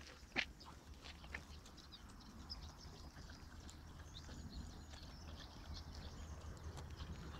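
Faint outdoor background: a steady low rumble on the microphone, a few sharp clicks in the first second and a half, and scattered faint high chirps.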